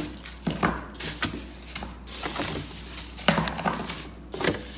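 Frozen vegetables in plastic bags being shifted and pulled out of a freezer drawer: crinkling plastic and hard knocks of frozen packets against each other and the drawer.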